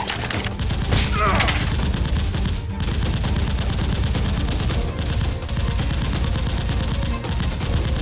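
Rapid automatic gunfire, a dense continuous volley with a few short breaks.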